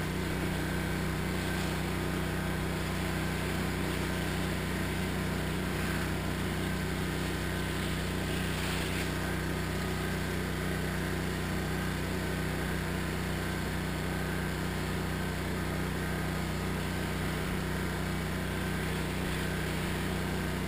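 Pressure washer's engine running at a steady pitch, with the hiss of the spray from a long wand rinsing cleaning chemical off a house roof.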